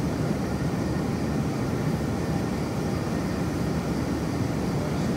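Large industrial ventilation fans for drying grapes, running steadily with an even, low rush of moving air.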